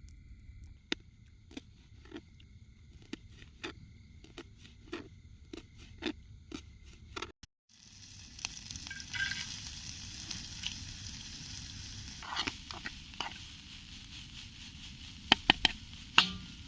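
Knife chopping soya chunks on a board: light, even knocks about one or two a second. After a short break, a steady crackling hiss, with a few sharp knocks near the end.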